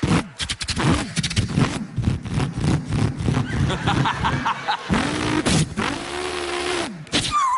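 A man imitating a Holden Torana V8 with his voice: a rapid crackling burble, then a string of revs swooping up and down in pitch like gear changes, a long held note, and a short falling squeal near the end.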